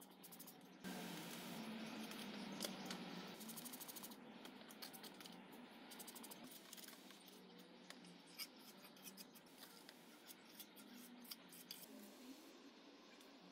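Faint hand-mixing of a cement slurry: water poured from a plastic bottle into a plastic bowl, and a small tool scraping and clicking against the bowl as it stirs.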